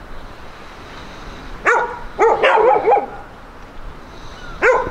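Dog barking: a quick run of several short barks about two seconds in, then another bark near the end.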